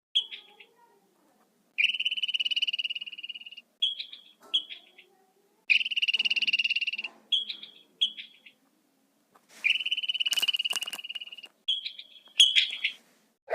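An animal calling in high pulsed trills: three long trills of one to two seconds each, with short chirps of the same pitch between them.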